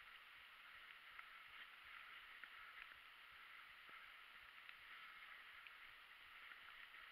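Faint, muffled mountain bike riding over a wet, leaf-covered trail: a steady low hiss of tyres rolling, with scattered small ticks and rattles.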